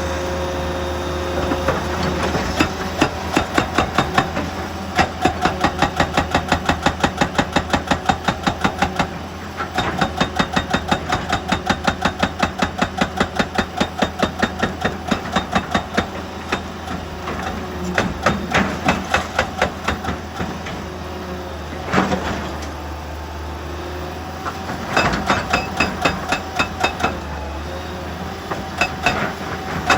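Excavator-mounted hydraulic breaker hammering rock in runs of rapid, even blows, about four a second, stopping and restarting several times, over the steady low hum of the diesel engine.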